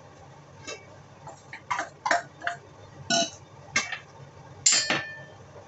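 Several sharp clinks and knocks of glass and stainless steel kitchenware as a bowl and jars are handled; the loudest, near the end, rings briefly.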